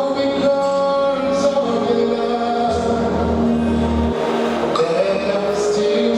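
Gospel music with group singing: voices holding and stepping between long notes over a band with a steady bass.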